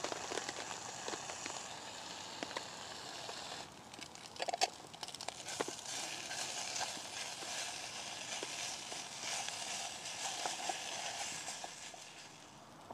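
Bacon sizzling steadily as it fries in a metal pot over a twig stove. A few short clicks and scrapes come between about four and six seconds in, as the slices are turned with a wooden fork, and the sizzle fades near the end.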